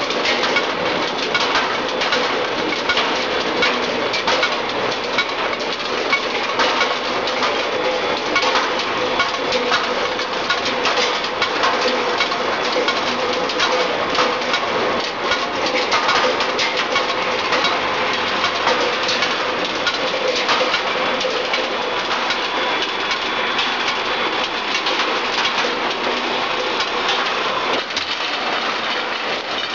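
Skew rolling machine running, its spiral rolls forming a red-hot steel bar into grinding balls: a continuous dense clatter with many small clicks.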